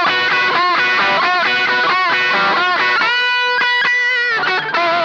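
Les Paul electric guitar through a Pedrone Slim Pegasus valve amplifier, recorded direct: a quick lead line of single notes with string bends, a note held for about a second a little past the middle, then more quick notes.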